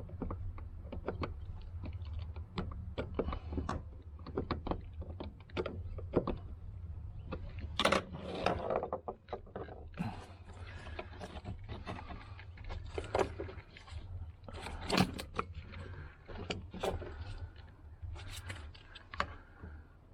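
Irregular clicks, taps and light rattles of hands fumbling at a plastic connector tab on a fuel pump assembly, pressing it in and trying to pull it free, over a steady low hum.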